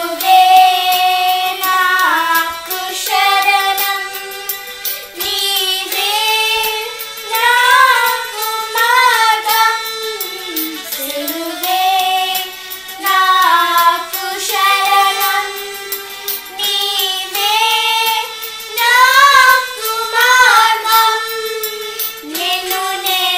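A young girl singing a Telugu Christian worship song, holding long notes and bending them in melodic runs.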